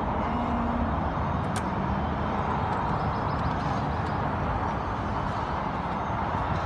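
Steady outdoor background noise: wind rumbling on the phone microphone mixed with distant road traffic, with one faint tick about one and a half seconds in.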